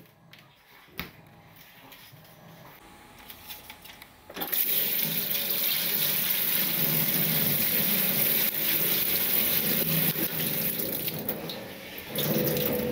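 A few faint clicks, then from about four seconds in tap water runs steadily from a faucet's spray head into plastic ice-cube trays. The water eases off with a brief louder surge near the end.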